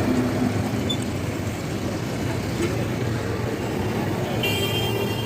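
A steady mechanical hum mixed with street traffic noise, and a high ringing tone that starts near the end.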